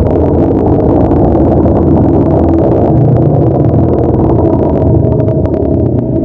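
Monster creature sound effect: a loud, steady, low rumbling growl with a crackly rasp, built from the Gabora kaiju roar.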